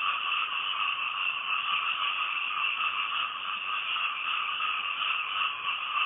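A chorus of many frogs calling together at night: a steady, unbroken din in two high-pitched bands, with no single call standing out.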